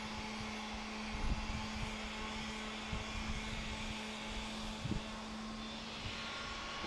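A steady mechanical drone with a low steady hum underneath, and a few soft bumps about one, three and five seconds in.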